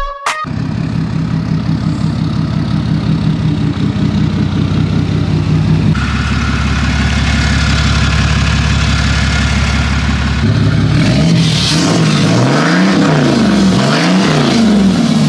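Ram heavy-duty pickup's 6.7-litre Cummins inline-six turbodiesel idling with a steady rhythmic chug. About ten seconds in it is revved up and back down three times in quick succession.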